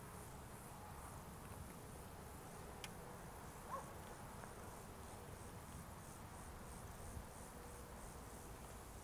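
Insects chirping faintly in a steady, high, pulsing rhythm of about two to three pulses a second, over a low steady rumble, with a single short click about three seconds in.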